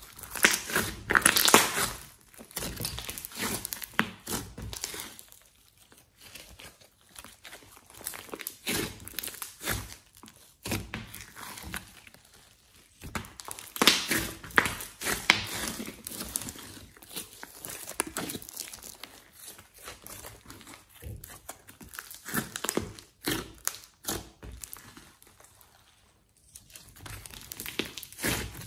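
A large mass of glossy slime being squeezed and kneaded by hand, giving a run of irregular sticky clicks and pops. It is loudest just after the start and again around the middle, with a short lull near the end.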